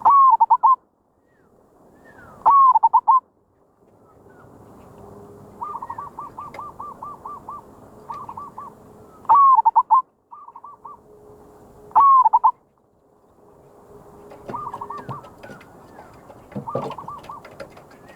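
Zebra dove (merbok) cooing: short phrases of quick staccato coos, four very loud ones a few seconds apart with fainter phrases between them. It is the decoy (pikat) call prized in merbok trapping.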